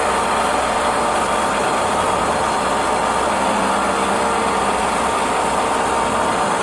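CNC milling machine running a face-milling roughing pass: steady, loud spindle and cutting noise. A humming tone fades out at the start.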